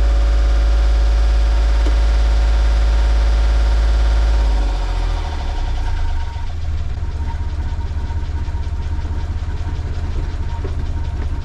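Volvo Penta marine diesel running steadily at raised revs, then dropping back to idle about four and a half seconds in, still cold just after starting.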